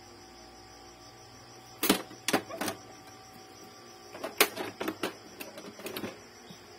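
Plastic clicks and knocks from an Epson L3110 inkjet printer as its scanner unit is lowered shut and handled: a sharp click about two seconds in, two lighter ones just after, then a cluster of clicks from about four to six seconds.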